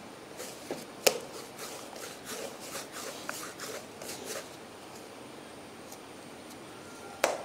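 Hands pressing, rolling and breaking off pieces of soft maida dough on a board: quiet pats and rubs, with two sharp clicks, about a second in and near the end.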